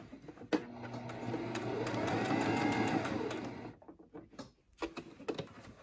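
Sewing machine stitching fabric, running for about three seconds as its motor speeds up and then slows to a stop. A few light clicks follow.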